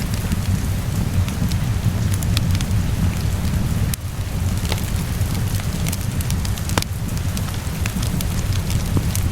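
Wood fire crackling, with scattered sharp pops and snaps, over the steady hiss and low rumble of falling rain.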